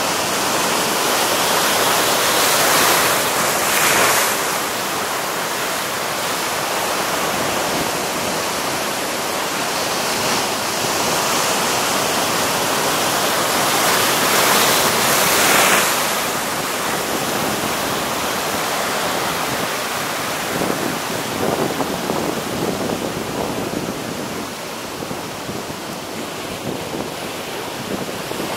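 Heavy sea surf breaking and washing over rocks, a steady rush of water with louder surges of breaking waves about three seconds in and again around fifteen seconds.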